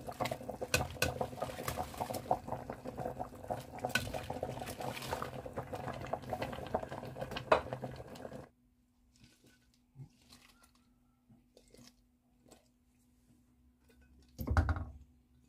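A pot of mung bean soup bubbling at a simmer, with a dense crackle of small pops, cutting off abruptly about eight seconds in. After that there is a faint steady hum with a few soft ticks, and near the end a short thud as chopped green onions are tipped from a plate into the pot.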